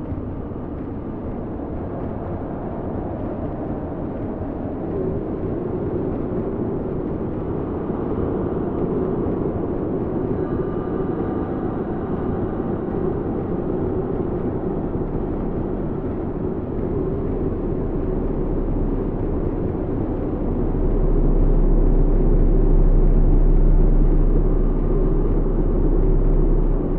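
Low, steady rumbling tunnel ambience. About twenty seconds in it swells louder with a deep hum, then eases off slightly near the end.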